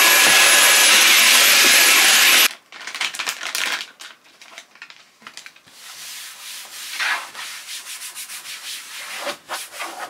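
A loud steady hiss with a faint high whine cuts off abruptly about two and a half seconds in. After it, plastic bottles and containers are handled and shuffled, with rubbing, scraping and light knocks.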